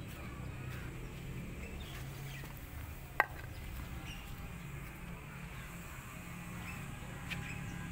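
Outdoor ambience: faint, scattered bird chirps over a low steady hum, with one sharp click about three seconds in and a softer one near the end.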